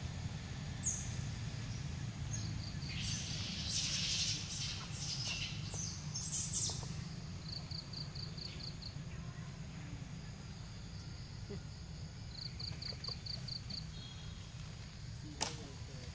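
A bird calling twice in short runs of rapid, evenly spaced high notes, about six a second, over a steady low rumble. A rustling noise comes a few seconds in, and a sharp click near the end.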